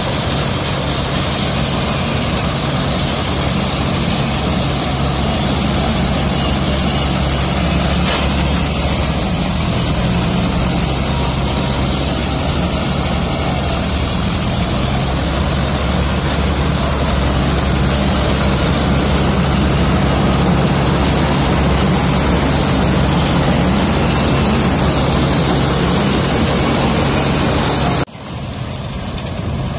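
John Deere 5310 tractor's three-cylinder diesel engine running steadily under harvesting load, with the mounted maize harvester's cutting and threshing machinery adding a dense, even rushing noise over the engine hum. Near the end the sound drops suddenly to a quieter, more distant engine hum.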